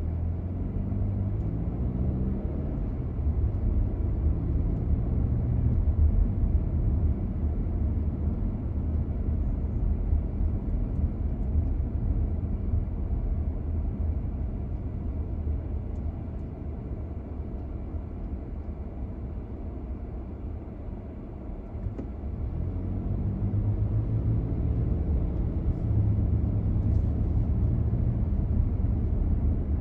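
Car engine and tyre noise while driving on city streets, a steady low rumble. It eases off around twenty seconds in, then picks up again as the car speeds up.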